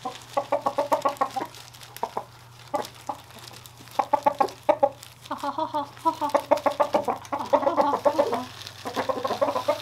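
Roosters clucking in fast runs of short notes, about eight a second, in several bursts of one to three seconds each. These are the happy, food-calling clucks roosters make when treats are being handed out.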